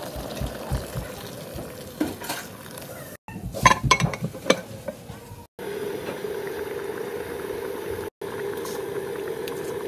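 A pot of chicken and tomatoes simmering, then several sharp clatters as the metal pot lid is set on and handled, between about three and five and a half seconds in. After that, a pot of broth boiling with a steady bubbling hiss.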